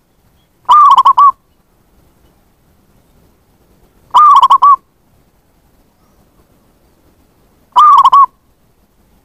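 Zebra dove (perkutut) cooing: three loud, short calls about three and a half seconds apart, each a quick run of three or four notes.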